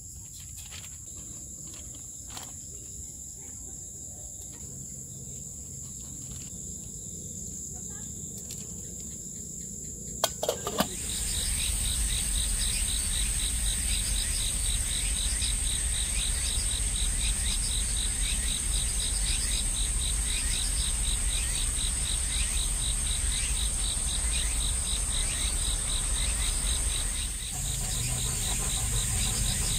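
A chorus of insects with a steady high trill. About eleven seconds in, after a few clicks, it turns abruptly louder and a fast, rhythmic pulsing chirp joins the trill.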